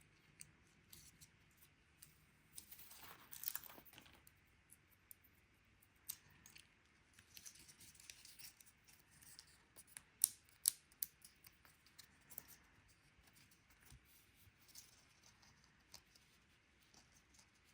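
Faint handling of cardstock and adhesive foam dots: soft rustling and peeling, a longer rustle about three seconds in, and scattered small clicks and taps, two sharper ones about ten seconds in.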